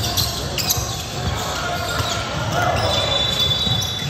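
Basketball bouncing on a hardwood gym floor during play, with sneakers squeaking briefly and players' voices echoing in the gym.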